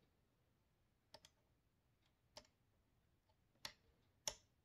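About five light, irregular clicks of a small metal straight edge, used as a fret rocker, set down and shifted across the metal frets of a guitar neck to check that the frets are level. The loudest click comes near the end.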